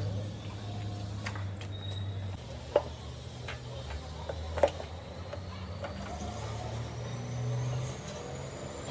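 Low, steady engine hum that drops in pitch about two seconds in and rises again near the end, with two sharp clicks in the middle.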